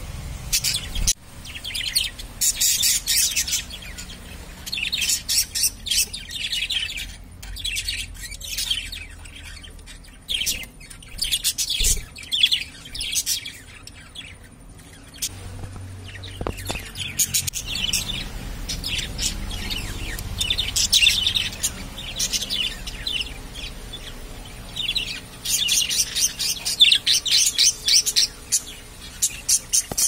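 Budgerigars chirping and chattering in fast, high, scratchy spells broken by short pauses.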